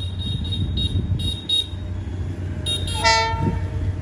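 Diesel locomotive approaching with a steady low engine rumble. A string of short high-pitched beeps sounds during the first two seconds, then the locomotive gives one short horn blast about three seconds in.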